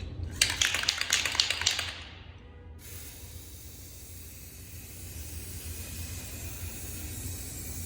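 Aerosol spray paint can: about a second and a half of rapid rattling, then a steady hiss of paint spraying for about five seconds while a third coat goes on.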